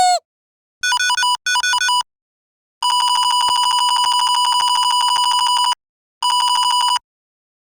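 Electronic toy sound effects. A short falling chirp is followed by two bursts of warbling beeps, then a long, fast trilling ring like a toy telephone lasting about three seconds, and a shorter ring near the end.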